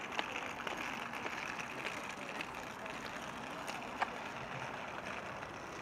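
Outdoor city ambience: a steady wash of traffic noise, with a few short, sharp clicks, the sharpest about four seconds in.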